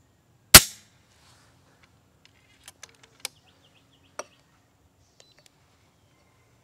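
A single sharp report from an FX Impact X .25 regulated PCP air rifle firing, about half a second in. A couple of seconds later come a few light metallic clicks as the side-lever action is worked to cock it and load the next pellet.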